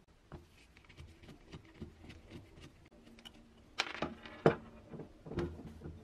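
A metal rod clicking and knocking against the bakelite motor housing of a 1947 Piccolo coffee grinder: a string of small clicks, with a few louder knocks in the second half, the loudest about four and a half seconds in.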